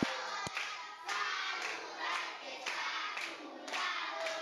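A group of young children singing a song together, clapping along about twice a second.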